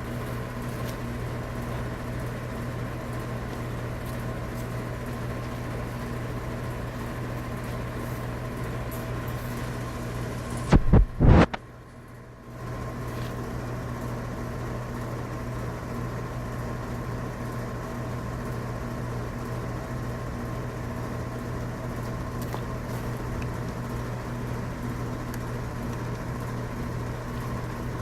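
A steady mechanical hum holding several fixed tones. A few loud knocks come near the middle, and the hum dips away for about a second before it returns.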